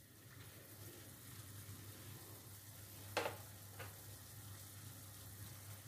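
Rolled meat roast simmering in wine and cooking fat in a pot, a faint, steady sizzle as the wine cooks down. One short knock about three seconds in.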